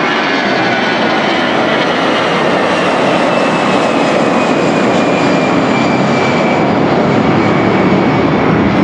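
The four PS-90A turbofan engines of an Ilyushin Il-76TD-90VD freighter running at taxi power: a steady, loud jet roar with a high turbine whine that slowly falls in pitch. It grows slightly louder toward the end as the aircraft taxis closer.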